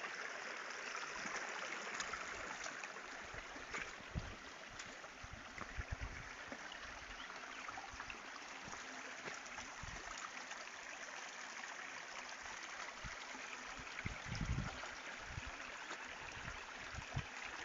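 A small river running steadily over its bed, a continuous trickling, gurgling rush of water. A few short low thumps come about four, six and fourteen seconds in.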